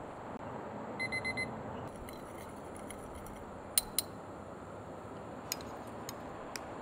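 Digital kitchen timer beeping four quick times, signalling that the dumplings' steaming time is up. A couple of seconds later come two sharp clinks close together, then a few fainter ticks.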